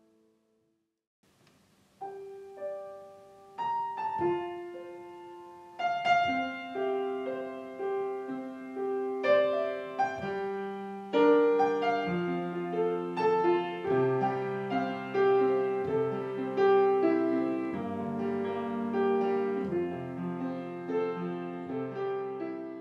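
Solo piano playing a slow, gentle piece: single notes enter about two seconds in and build into fuller chords from around halfway.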